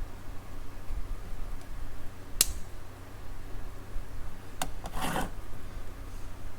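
Small handling noises as a power transistor is hooked up to a component tester: a sharp click about two and a half seconds in, two lighter clicks a little past the middle, and a short scraping rub right after them.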